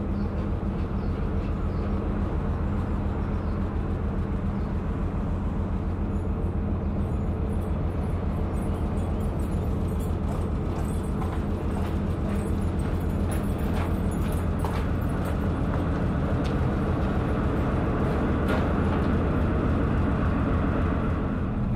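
Narrowboat's engine running steadily while cruising, a low even throb with a regular pulse.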